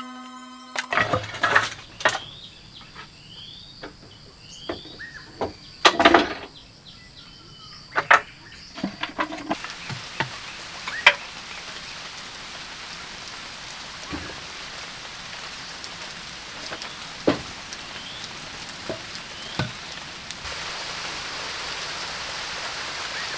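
Scattered knocks and clatters of hand work, over a steady high insect drone and a few short chirps. The knocks are louder in the first half and sparser later.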